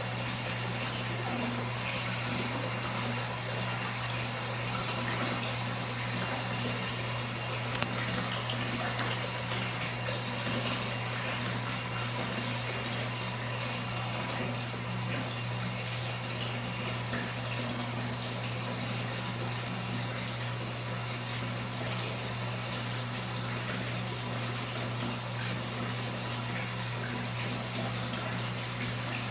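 Water running steadily, as from a tap filling a tub, with a steady low hum underneath.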